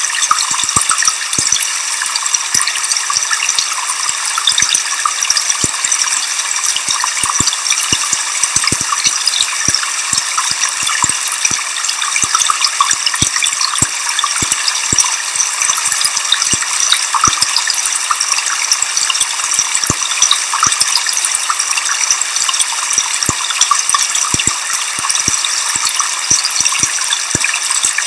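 Waterfall rushing without a break, a steady bright hiss sprinkled with many small ticks and splashes.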